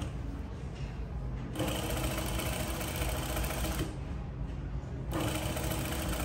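Zoyer industrial straight-stitch sewing machine sewing a zipper onto denim in two runs. The first starts about a second and a half in and lasts about two seconds; the second starts about five seconds in. Between them the motor hums low.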